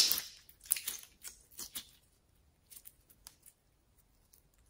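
Clear slime being squeezed and pulled apart by hand: a run of sticky crackles and pops, loudest at the start, thinning after about two seconds to a few faint clicks.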